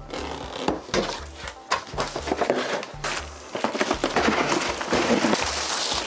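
Background music with a steady bass beat, over rustling, scraping and crackling as a cardboard box and its packaging are opened.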